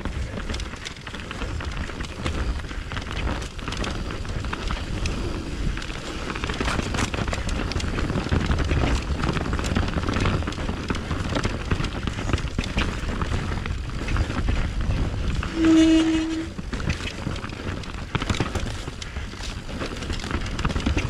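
Mountain bike being ridden down a trail: continuous rumble and rattle with many scattered knocks over rough ground, and a brief steady tone about three-quarters of the way through that is the loudest moment.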